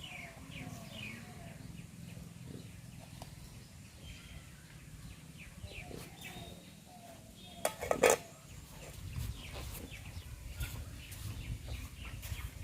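Small birds chirping, repeated short falling calls, over a low steady rumble, with one sharp loud clatter about eight seconds in.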